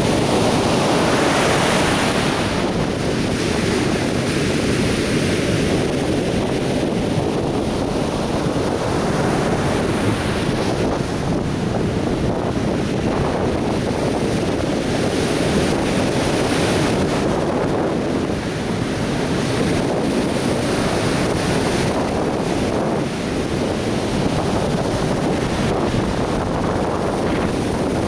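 Atlantic Ocean surf breaking and washing up a beach: a continuous rush of waves that swells and eases as each one comes in.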